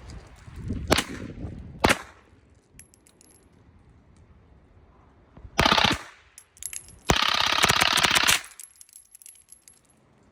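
Rapid gunfire from pistol-calibre firearms with forced reset triggers: two single shots about a second apart, a short quick string a few seconds later, then a longer rapid string lasting over a second.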